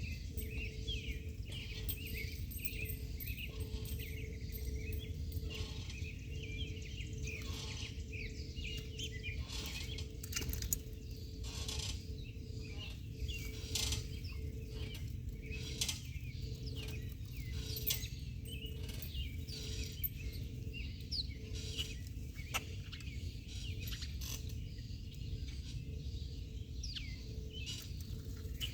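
Small birds chirping and twittering in many quick, short calls over a steady low rumble.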